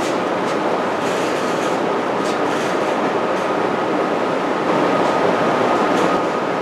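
A machine running steadily in a workshop: an even whoosh with a faint high whine. A few light knocks of wooden boxes being set down on the bench sound over it.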